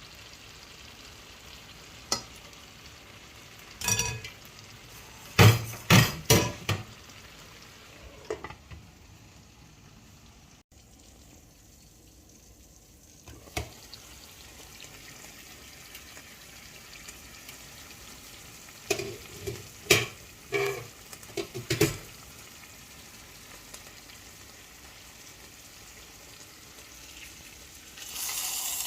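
Food sizzling in a cooking pot while a spoon stirs it, knocking and scraping against the pot in two short bouts of clatter. A louder steady hiss starts near the end.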